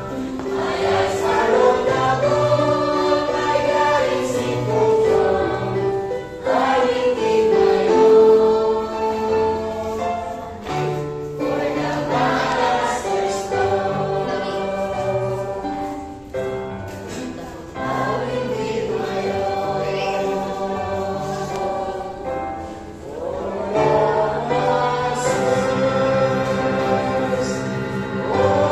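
Small youth choir of girls and one young man singing a hymn together, in long phrases with short pauses between them.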